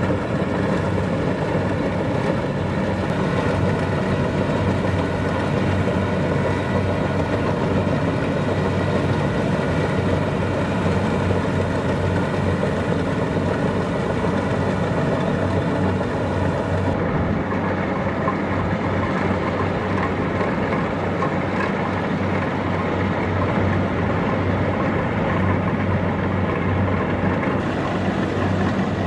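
Kubota DC-70 Plus combine harvester running steadily as it harvests rice, its diesel engine and threshing machinery making a constant drone.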